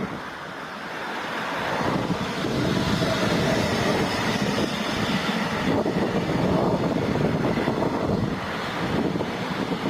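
Freight train running past, a steady rumble that grows louder over the first couple of seconds and then holds.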